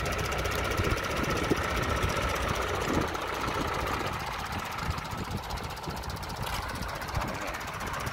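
Ford farm tractor engine running as it hauls a loaded trailer, easing off about halfway through as the tractor slows.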